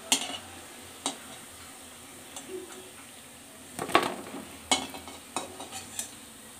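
Gram-flour drumstick-flower fritters deep-frying in a steel kadai, a steady sizzle of the oil, with a metal spatula knocking and scraping against the pan about six times as the fritters are turned and lifted out.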